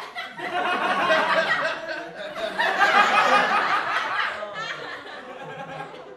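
A crowd of many people laughing together, swelling twice and dying down near the end.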